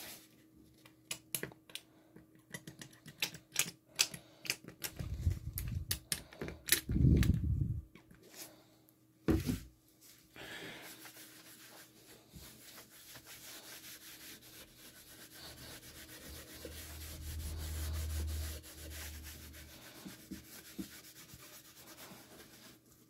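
A cloth rag rubbing oil finish into a flat wooden clock face, a steady scrubbing swish over the second half. It is preceded by a string of sharp clicks and taps and a few heavier thumps as the finish container and board are handled.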